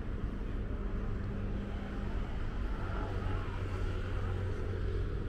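Road traffic: a steady low rumble of passing vehicles with a continuous engine hum.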